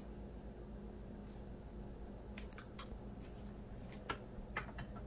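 Low steady room hum with a few faint, light clicks and taps in the second half.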